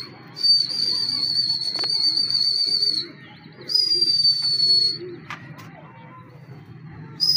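A whistle blown in long, steady, high-pitched blasts with a slight wobble in pitch, each starting with a quick dip. The first lasts about two and a half seconds, a shorter one follows after a brief gap, and another starts near the end. A low hum runs underneath, and a single click comes just after the middle.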